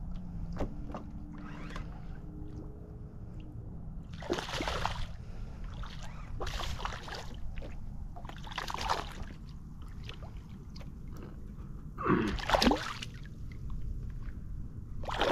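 Water splashing: short splashes about two seconds apart, then a louder burst of splashing near the end, over a steady low rumble.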